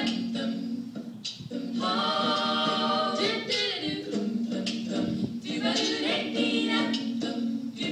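A cappella female vocals layered with a loop pedal: a repeating low sung bass line runs under sung phrases, with one long held note about two seconds in.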